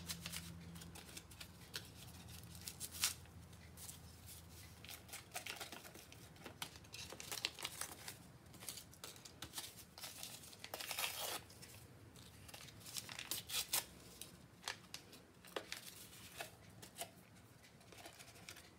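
Two paper packets of unflavored gelatin being torn open and crinkled as the powder is shaken out, in irregular rustles and rips, with a thicker stretch of tearing about eleven seconds in.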